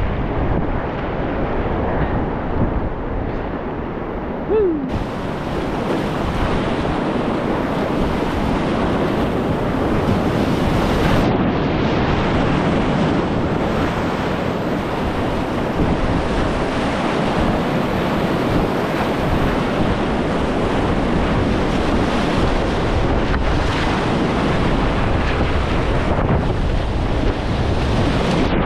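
Steady rush of whitewater around a kayak on a fast river rapid, with wind noise on the microphone.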